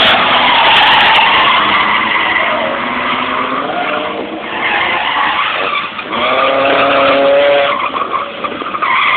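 A drifting car's tyres screeching continuously while its engine revs, the engine note climbing and holding strongly from about six seconds in.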